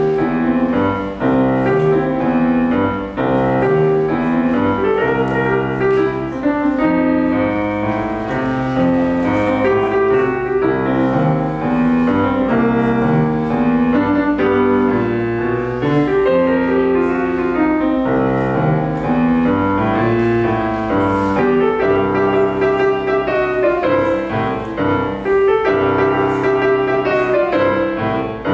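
Bösendorfer grand piano played solo: a continuous piece of flowing melody over chords, at an even level with no pauses.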